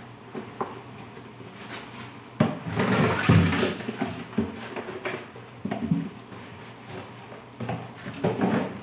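Dishes and utensils handled at a kitchen sink: scattered clinks and knocks, with a louder, noisier clatter lasting about a second, starting about two and a half seconds in.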